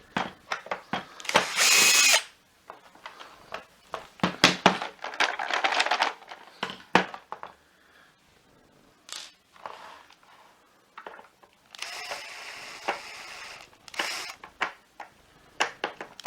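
Cordless electric screwdriver running in short bursts as it backs screws out of a vacuum power nozzle's plastic housing, with a whine in the first burst about a second in. Clicks and clatter of screws and plastic parts being handled come between the bursts.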